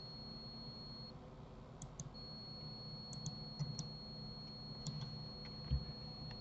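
Faint, scattered clicks of a computer mouse and keyboard, a few at a time starting about two seconds in, over a faint steady high-pitched whine.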